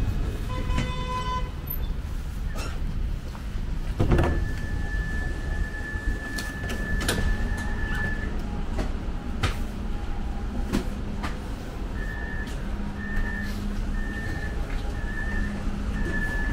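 Inside a tram: a short electronic chime, a knock about four seconds in, then a steady high beep lasting about four seconds. Near the end the high beep repeats about once a second, the tram's door warning signal, over the low hum and rumble of the tram.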